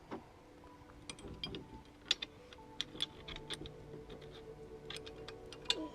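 Scattered small metal clicks and ticks, a few a second and irregular: screws and a ratchet wrench being handled and worked while bolting a bicycle's handlebars on.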